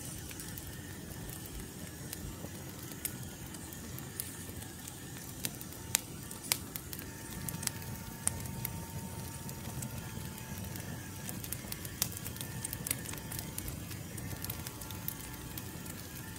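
Wood fire crackling over a steady low rumble, with sharp pops scattered irregularly throughout.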